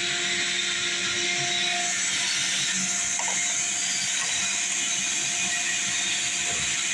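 Shop vacuum running steadily, sucking debris out of a mouse nest. A constant whooshing hiss with a steady hum under it.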